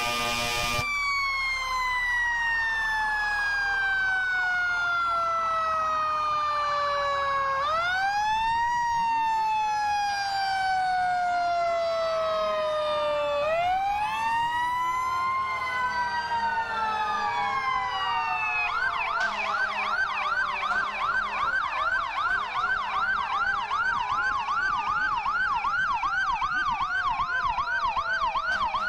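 Fire truck sirens passing: a steady horn blast cuts off about a second in, then a siren's pitch slides slowly down, is wound back up and falls again twice, with other wailing sirens overlapping. From about two-thirds of the way in, a siren switches to a fast yelp, about two to three rises a second.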